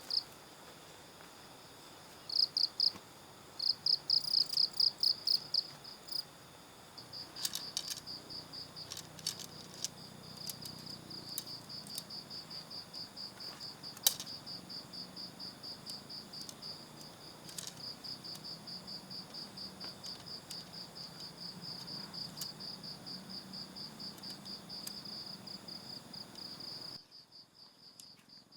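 Crickets chirping: loud short bursts of high pulsing trills at first, then a steady rapid pulsing trill. A few sharp clicks fall in among them, the loudest about halfway through, and near the end the sound drops abruptly quieter while the chirping continues.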